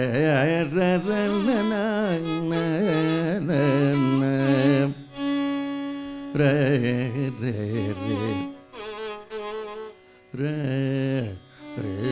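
Carnatic vocal alapana in raga Balachandrika: a male voice sings wordless, gliding, ornamented phrases with a violin following him, and one note is held steady about five seconds in.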